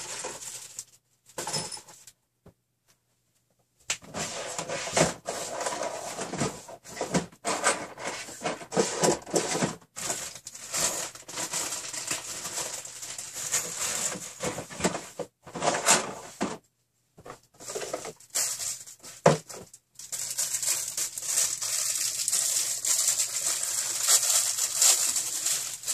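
Rummaging by hand through parts and packaging in search of an adapter: rustling with small clatters in stretches broken by short pauses, then unbroken rustling over the last few seconds.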